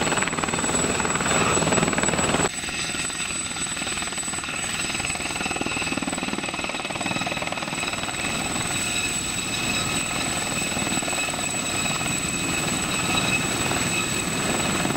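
Aérospatiale Gazelle helicopter hovering low: its turboshaft engine whines steadily over the beat of the rotors. The sound drops sharply in level about two and a half seconds in and then holds steady.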